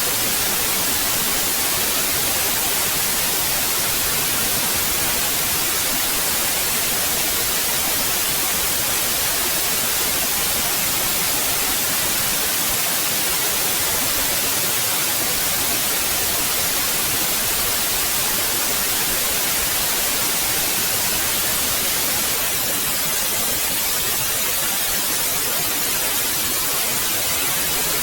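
Steady white noise: an even, unchanging hiss weighted toward the high frequencies.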